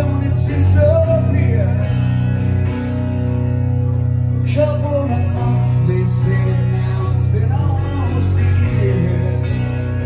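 Live guitar and bass guitar playing a song together, a steady bass line under the guitar.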